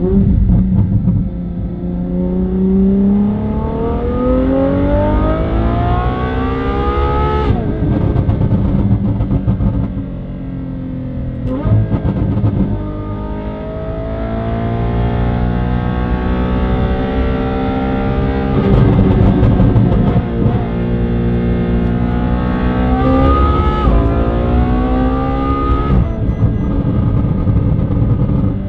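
Lamborghini V12 with a Gintani aftermarket exhaust accelerating hard through the gears: the revs climb steadily and drop sharply at each upshift, several pulls in a row. Background music with guitar plays underneath.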